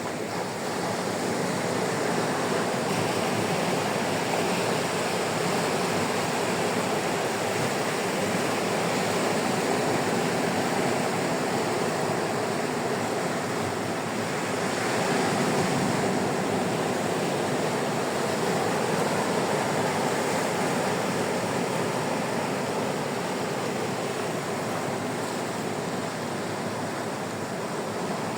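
Sea waves washing onto a sandy beach: a steady rushing surf noise that swells slightly about halfway through.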